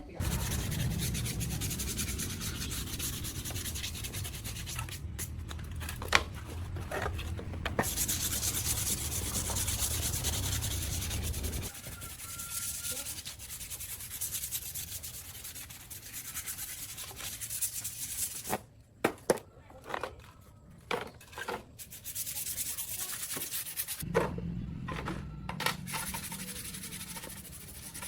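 Sanding or abrasive scrubbing over a steady motor hum. It stops abruptly about twelve seconds in, gives way to a quieter stretch of scattered clicks and knocks, and starts again near the end.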